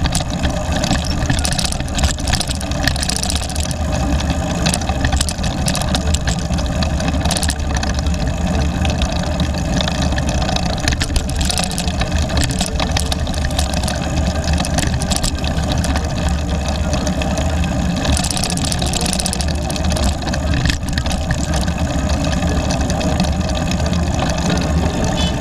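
Steady low rumble of wind and road noise on a bicycle-mounted camera while riding, with car engines idling in a queue of traffic alongside and occasional small knocks from the road surface.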